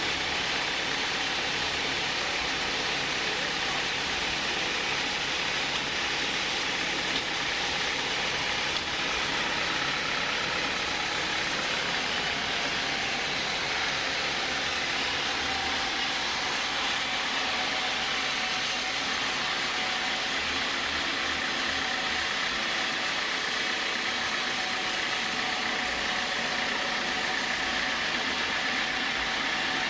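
Sawmill saw running with a steady, even noise, with faint steady whines that come and go in its pitch during the second half.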